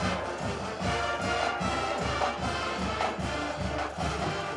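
Brass-band music with a steady drum beat.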